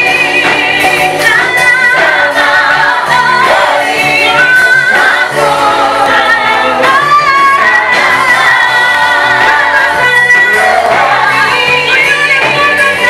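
A choir of singers leading a gospel praise song with instrumental accompaniment, the voices singing with vibrato.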